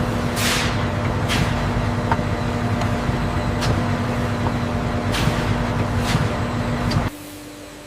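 Factory machinery running: a steady hum and low rumble, broken by several short sharp bursts. About seven seconds in it cuts off suddenly to a much quieter, different hum.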